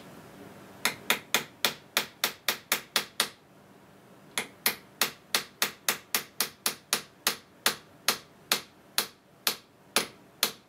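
Small ball-peen hammer tapping a steel bolt used as a drift against a die-cast lathe crossfeed gear held in a vise, to drive the gear off its peened-over square shaft. Sharp, light metallic taps, about three to four a second, in two runs with a short pause between them.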